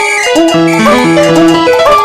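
Instrumental background music: a melody of short pitched notes over a stepping bass line.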